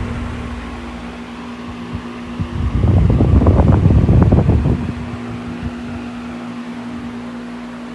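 Arge Max 200 W, 60 cm electric fan running, a steady motor hum under the rush of its air. For about two seconds in the middle the airflow buffets the microphone and gets louder and rougher, then settles back.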